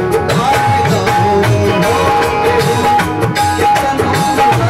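Live Bhojpuri song: a man singing over electronic keyboard melody and a steady drum beat.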